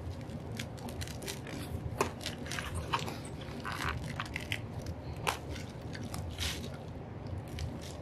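Gloved hands working apart a plant's root ball of potting soil and roots: irregular crunching and crackling as the roots tear and the soil breaks up, with a few sharper cracks.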